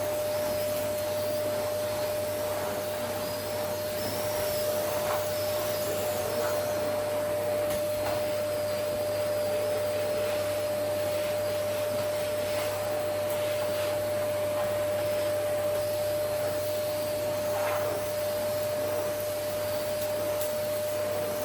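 Vacuum cleaner running steadily: a constant motor whine over an even rushing hiss.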